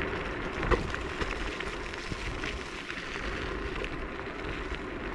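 Techlife X7S scooter rolling over a rough forest track: a steady crackle of tyres on the ground with small rattles and clicks, and one sharp knock under a second in.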